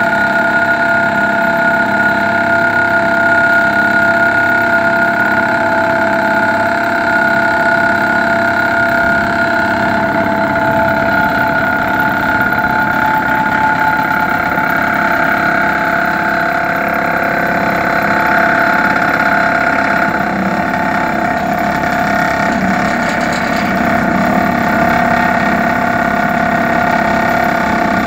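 John Deere excavator's diesel engine running steadily, a constant mechanical hum with several held tones.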